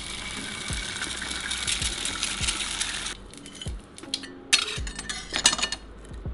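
Quail eggs frying in a hot nonstick pan: a steady sizzle with fine crackling that cuts off about three seconds in. A few sharp clinks of a plate follow, with a soft steady beat from background music underneath.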